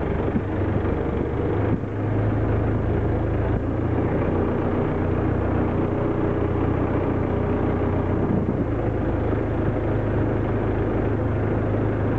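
Lobster boat's engine running steadily: a low, even drone.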